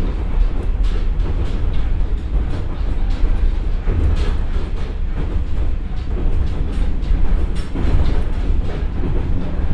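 Running sound inside the cabin of a KiHa 47 diesel railcar (Komatsu engine, KTF3335A transmission) pulling steadily as it gathers speed from about 67 to 70 km/h. A steady low diesel drone under load, with wheels clacking now and then over rail joints.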